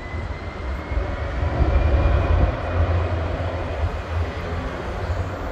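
A large business jet's turbofan engines at high power as it rolls along the runway: a loud, steady rumble and rush with a faint whine slowly rising in pitch, loudest about two seconds in.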